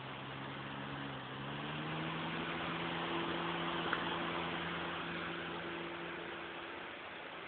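Metal-caged electric fan running: a steady rush of moving air over a low motor hum, the hum stepping up in pitch about a second and a half in and the rush swelling then easing. A light click about four seconds in.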